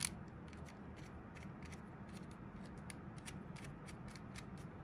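Faint, irregular small clicks of a plastic GoPro mounting thumbscrew being turned by hand to fasten the camera to its bracket.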